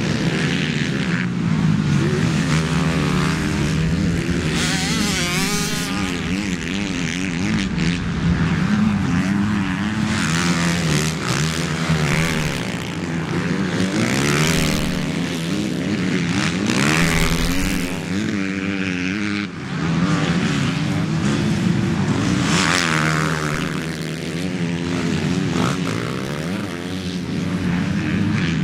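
Motocross bike engines racing past, revving hard with the pitch climbing and dropping over and over, several bikes overlapping.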